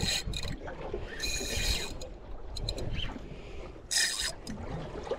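Wind and water noise on a small fishing boat: a steady low rumble, broken by short hissing bursts about a second in and again near the end.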